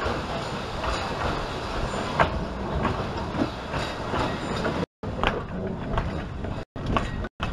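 Narrow-gauge steam train, the Talyllyn Railway's 0-4-0 well-tank locomotive Dolgoch and its wooden coaches, rolling slowly past at close range. Its wheels rumble and click irregularly over the rail joints. The sound drops out for an instant three times in the second half.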